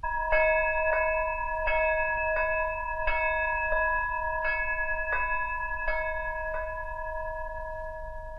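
A bell struck over and over in an even beat, a little faster than once a second, about ten strikes of the same ringing chord. After the last strike the ring fades away.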